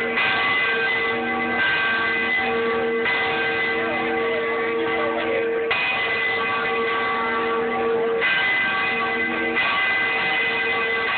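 Large victory bell rung again and again, six strokes about one and a half to two and a half seconds apart. Each stroke rings on as a steady chord of tones until the next one.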